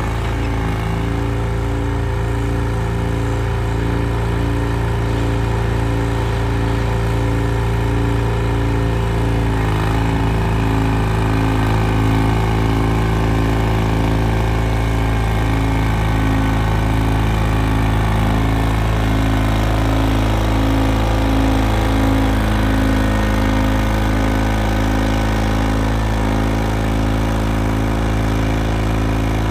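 Vintage John Deere 440 crawler dozer's engine running steadily under load while it pushes soil with its blade, with an even pulsing throb about one and a half times a second.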